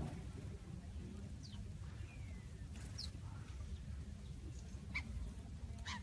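House sparrows giving a few brief, high chirps, one of them a short falling note, over a low steady background rumble.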